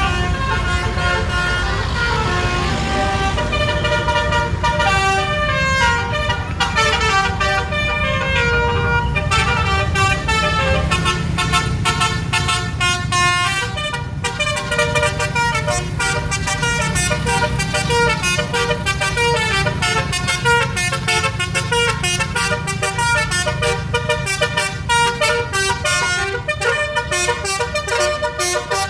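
Basuri telolet multi-tone air horn on a tour bus playing a melody: a long run of loud horn notes stepping up and down in pitch, turning into quick, clipped notes from about ten seconds in, over a steady low rumble.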